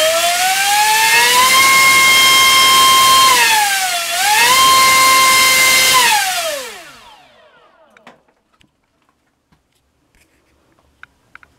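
NTM PropDrive 3536 1800kv brushless outrunner on 6S spinning a 5.5x5.5 Gemfan propeller in a full-throttle thrust run: a high whine climbs and holds at full speed, dips briefly about four seconds in, climbs back, then winds down and stops about seven seconds in. A few faint clicks follow near the end.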